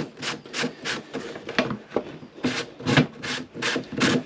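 Threaded plastic caps on the magnet housings of a MagnaCleanse system-flushing unit being screwed down by hand. The threads rasp in short, even strokes, about three a second.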